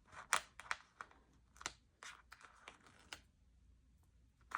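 Small, sharp clicks and light paper rustles of a sticker sheet being handled, with stickers peeled off and pressed onto a planner page; the clicks come irregularly for about three seconds, then it goes quieter.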